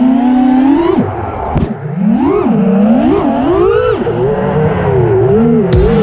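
FPV quadcopter's brushless motors whining, the pitch swooping up and down repeatedly as the throttle is worked.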